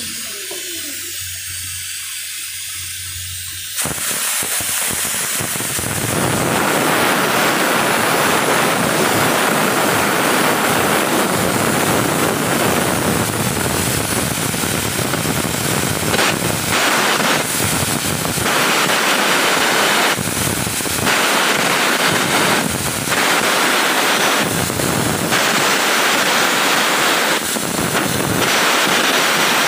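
Stick-welding arc on steel hull plate, crackling and sizzling steadily from about four seconds in, with several brief dips.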